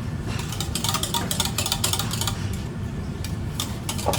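Kitchen sounds: a steady low machine hum with repeated sharp clicks and clatter of dishes and utensils, busiest in the first half.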